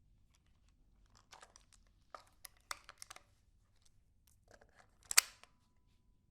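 Ruger 10/22 rifle being handled: a series of small sharp mechanical clicks and rattles, then one loud sharp snap about five seconds in, followed by a faint ring.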